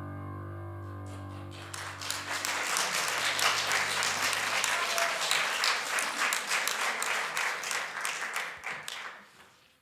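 The last held chord of the song's accompaniment dies away, then the audience applauds for about eight seconds, the clapping fading out near the end.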